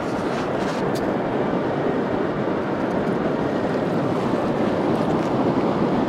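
Ocean surf rushing steadily onto a sandy beach, with some wind on the microphone.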